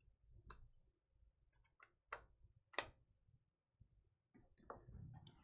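Faint, scattered clicks of glossy Panini Prizm trading cards snapping and sliding against each other as a stack is thumbed through by hand, three or four small ticks over a few seconds against near silence.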